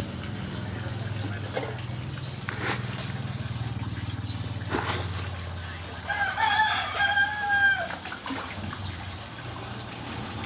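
A rooster crowing once, a single drawn-out crow about six seconds in, over a steady low hum.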